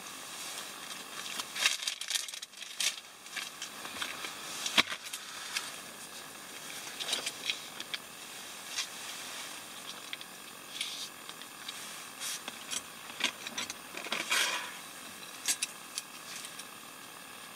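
Plastic food sachets crinkling and rustling as they are handled and torn open, in irregular short bursts, with a sharp click about five seconds in.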